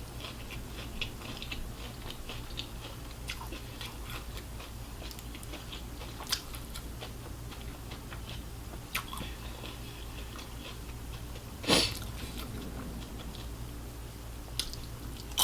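Close-miked eating sounds: chewing and biting with many small wet clicks and light crunches. One louder, sharp crunch comes about twelve seconds in.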